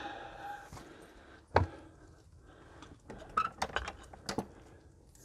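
A few sharp, irregular clinks and knocks of hard objects, the loudest about a second and a half in, then a quick cluster of lighter ones near the end.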